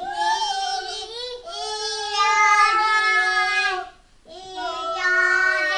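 A toddler singing wordless, long held notes. The singing stops briefly about four seconds in, then picks up again.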